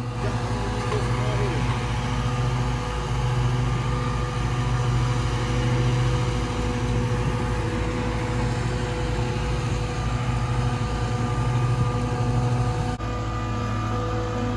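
An engine running steadily at a constant speed, a continuous even drone with no revving.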